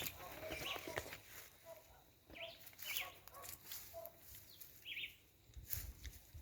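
Birds chirping outdoors: short high chirps repeated every second or two, with fainter lower notes between and a couple of soft knocks.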